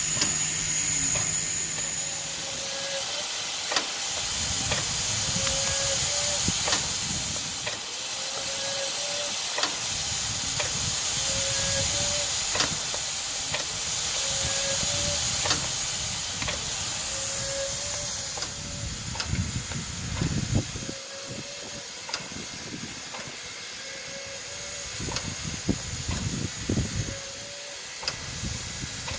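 Soviet steam locomotive standing with steam hissing steadily. A short tone recurs about every three seconds, with occasional sharp clicks and some low rumbling in the second half.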